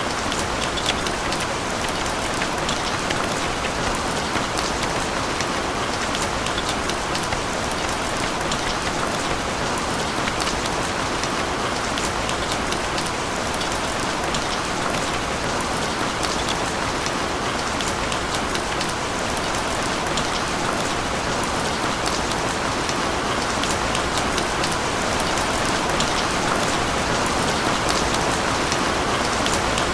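Steady rain falling on a surface: an even hiss peppered with many small drop ticks, unchanging throughout.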